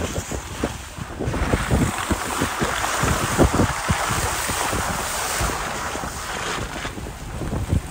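Wind buffeting the microphone of a moving vehicle: irregular low thumps under a rushing hiss that swells between about one and seven seconds in.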